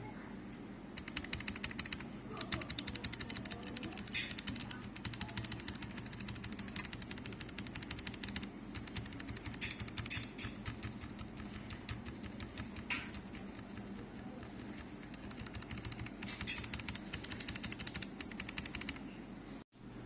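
Typing on an ESC75 barebone mechanical keyboard: fast runs of key clacks with short pauses between them.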